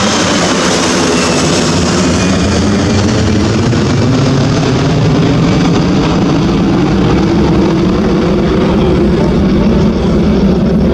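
Twin-engine jet airliner climbing out just after takeoff and passing overhead. Its high engine whine falls in pitch and fades in the first few seconds, leaving a loud, steady rumble as it climbs away.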